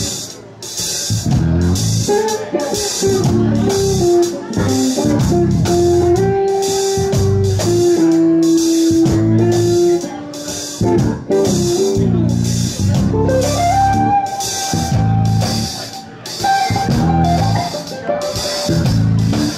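Live jazz trio: electric guitar playing a melody line of held and moving notes over bass, with the drummer keeping a steady cymbal pattern on the drum kit.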